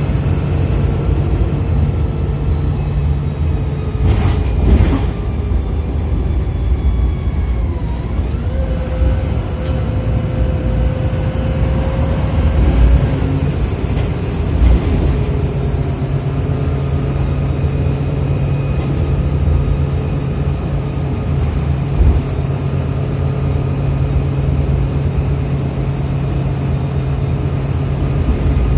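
Inside a VDL SB200 Wright Pulsar single-decker bus on the move, with its diesel engine and Voith automatic gearbox running. The steady engine drone drops away about four seconds in and comes back at around fifteen seconds, while a whine glides up in pitch in between. Brief sharp noises come twice at around four to five seconds and again at around fifteen seconds.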